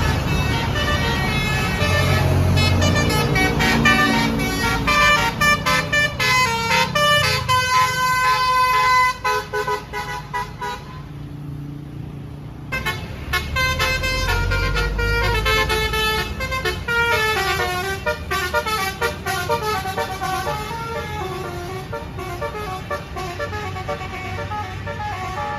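A tour bus's basuri telolet multi-tone air horn plays a fast melodic tune of stepping notes over a low engine rumble. About halfway through it breaks off for roughly two seconds, then starts another tune.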